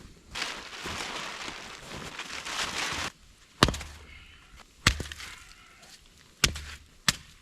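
Dry firewood being broken up by hand: about three seconds of rustling and crunching of sticks, then four sharp cracks roughly a second apart.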